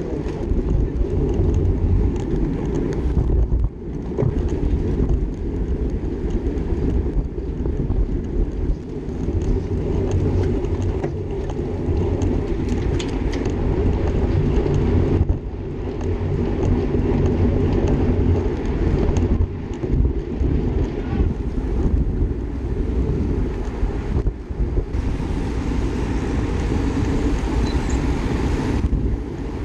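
Wind buffeting the microphone of an action camera on a moving racing bicycle: a steady, dense rumble that dips briefly a few times.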